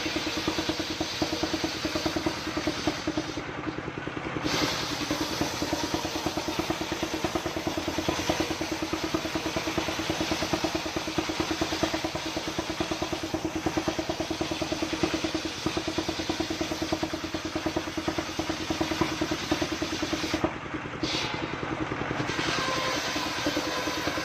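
Single-cylinder diesel engine running steadily under load, driving a circular saw blade that cuts through coconut-palm timber with a continuous harsh hiss. The cutting hiss drops out briefly twice, and a steady whine comes in near the end.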